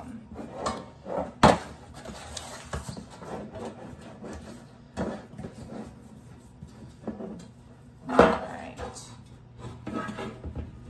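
Clatter of a baking pan and kitchenware being handled on a kitchen counter: scattered knocks and clinks, with two sharper knocks about a second and a half in and about eight seconds in.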